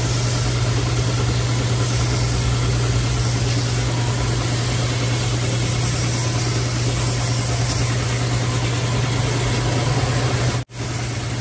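Pressure washer running steadily, a constant motor-and-pump hum under the hiss of its water jet spraying across the fins of an automotive A/C condenser. The sound cuts out abruptly near the end.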